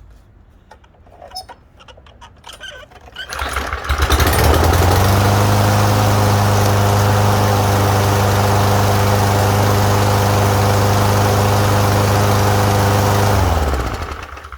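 Lawnmower engine that had been fogged for storage catching about three to four seconds in, after its plug was pulled and dried. It runs steadily at a constant speed for about nine seconds, then is shut off near the end and winds down.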